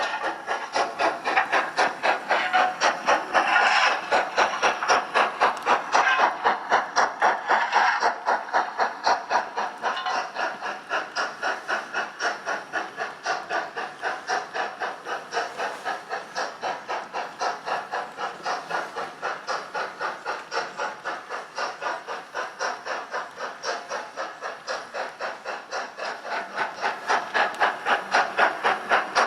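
Model steam locomotive sound decoder playing LMS Black 5 exhaust chuffs with steam hiss, an even beat of about three and a half chuffs a second. The beat is louder for several seconds early on and again near the end.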